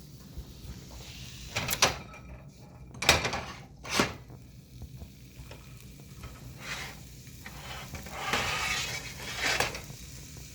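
Frozen sausages sizzling in a hot buttered frying pan, with three sharp clattering knocks of pan and utensils in the first four seconds and the sizzling growing louder near the end.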